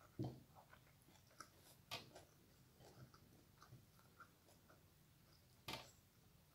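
Faint eating sounds close to the microphone: quiet chewing with small mouth clicks, broken by three sharper clicks, just after the start, about two seconds in, and near the end.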